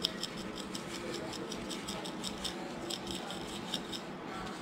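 Spice shaker of dry barbecue rub shaken over a raw pork shoulder: quick, uneven rattling shakes, several a second, with the rub pattering onto the meat.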